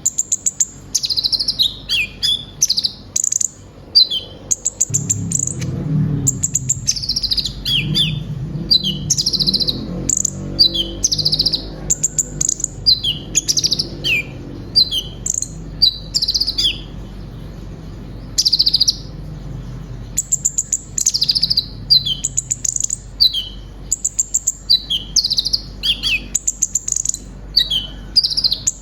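Konin (kolibri ninja) sunbird singing in long, fast runs of high, sharp chirps and quick down-slurred notes, broken by a couple of short pauses past the middle.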